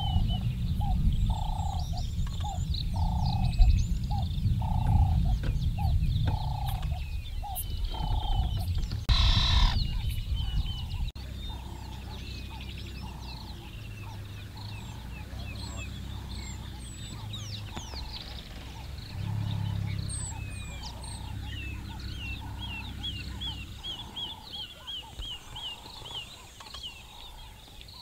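Wild birds calling in the bush: one repeats a short mid-pitched note about one and a half times a second, with higher chirps and trills above it, quickening near the end. A low rumble with a brief noisy burst runs under the first ten seconds or so and cuts off abruptly.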